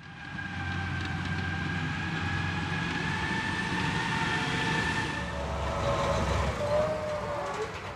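M270 MLRS tracked launcher driving over grass: its engine and running gear give a low rumble under a steady high whine. The whine's pitch shifts lower and wavers a little past the middle.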